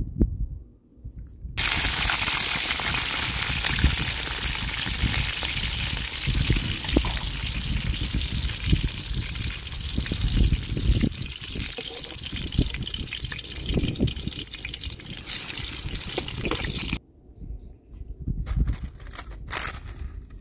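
Eggplant slices sizzling steadily as they fry in oil in a wide pan over a wood fire. The sizzle starts suddenly about a second and a half in and cuts off near the end. It is followed by short clicks and rustles of herbs being cut with a knife.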